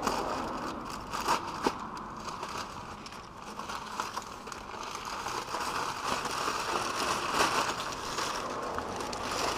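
Brown kraft packing paper being unwound and pulled off a pipe, rustling and crinkling with many small irregular crackles and a few sharper snaps.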